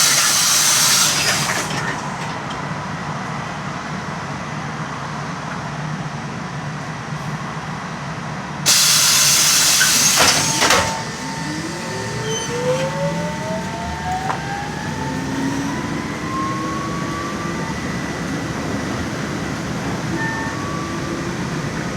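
LAZ E183D1 trolleybus at a stop: two loud bursts of pneumatic hiss, one at the start and one about nine seconds in, from the air-operated doors and brakes. Then the electric traction drive's whine rises steadily in pitch as the trolleybus pulls away.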